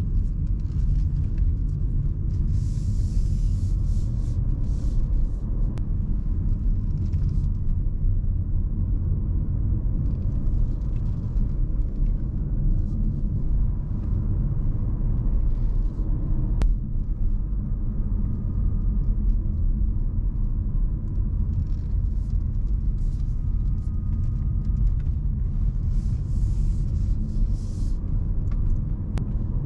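2024 Renault Symbioz E-Tech Full Hybrid driving on the road, heard from inside the cabin: a steady low rumble of tyres, road and drivetrain. A few seconds in and again near the end there are short spells of added hiss.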